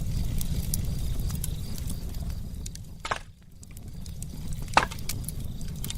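Campfire crackling: scattered sharp pops and snaps over a steady low rumble, briefly quieter about three seconds in.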